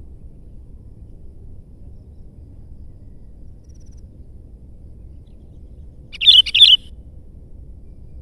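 Sooty-headed bulbul giving one short, loud two-note call about six seconds in, over a faint low rumble.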